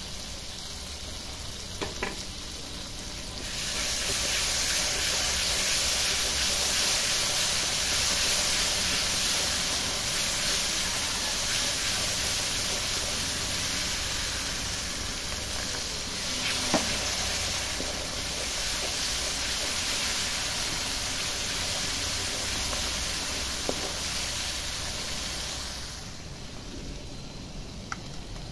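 Onion-and-spice masala sizzling in a wok as it is stirred with a wooden spatula, with an occasional knock of the spatula against the pan. The sizzle grows louder a few seconds in and eases off near the end.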